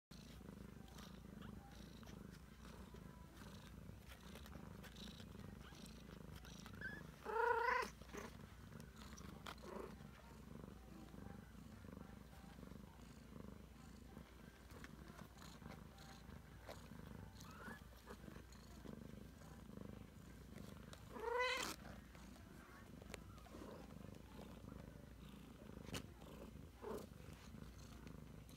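Ragdoll cat purring with a steady low rumble while nursing her three-week-old kittens. Two short, louder mews break in, about a quarter of the way through and again about three quarters through.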